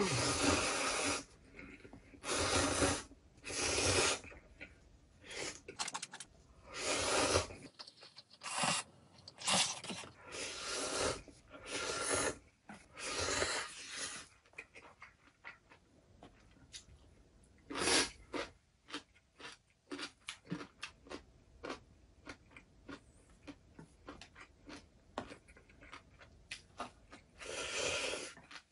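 A person slurping instant ramen noodles in a string of short noisy pulls through the first half, then mostly chewing and small sharp clicks, with another slurp near the end.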